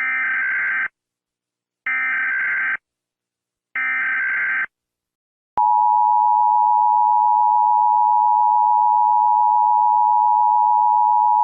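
Emergency Alert System signal: three short bursts of warbling digital SAME header tones about two seconds apart, then the steady two-tone EAS attention signal from about halfway through. It announces a flash flood warning.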